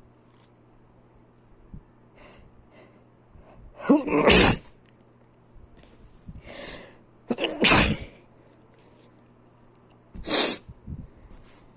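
A person sneezing three times. The first two sneezes, about four and seven and a half seconds in, each come after a short rising 'ah' as the breath is drawn in. The third, near the end, is shorter and has no 'ah' before it. Soft sniffs and breaths come before the sneezes.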